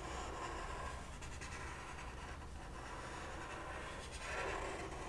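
Faint scratching of a felt-tip marker's tip drawn across paper as a circle is traced.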